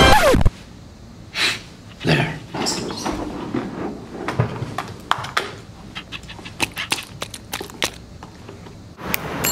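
Title music cutting off with a falling tone about half a second in, then a small plastic cup and lid being handled close by: scattered light clicks and rustles, with a couple of breathy noises in the first two seconds.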